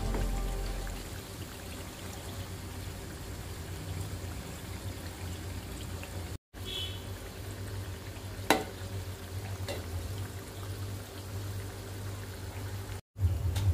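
Onion bhaji fritters deep-frying in hot oil in a pan: a steady sizzle over a low hum, with one sharp click about eight and a half seconds in. The sound cuts out briefly twice.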